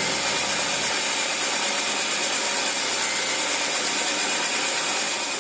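Home-made belt sander driven by an angle grinder, running at steady speed with its sanding belt spinning freely: a steady, high-pitched whirring hiss.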